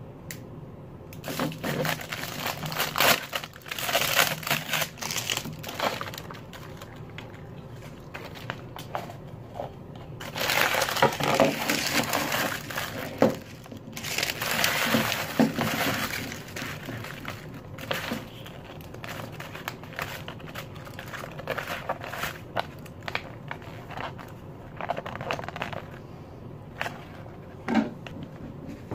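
Crinkly plastic and foil wrapping of an LOL Surprise doll ball crackling and tearing as it is unwrapped by hand, in two long bursts with quieter crinkles between.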